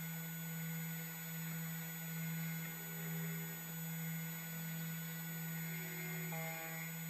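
A steady low hum that swells slightly, with faint background music chords changing over it.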